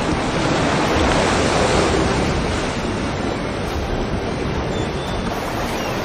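Sea waves washing in a steady rushing noise that swells slightly about a second in.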